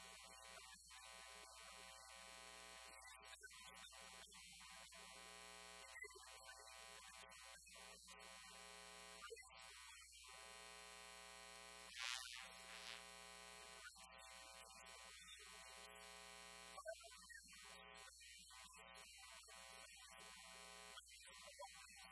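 Near silence with a faint, steady electrical buzz: a hum with many evenly spaced overtones. A brief faint hiss comes about twelve seconds in.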